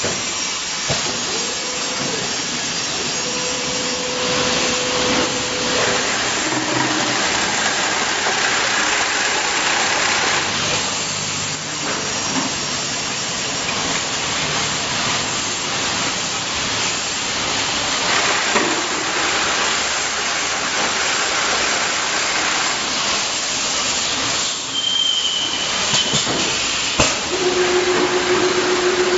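Steady hissing and running noise of an automatic motor oil bottle filling line, with compressed air from its pneumatic parts. A brief high whistle comes late on, and a steady lower hum joins near the end.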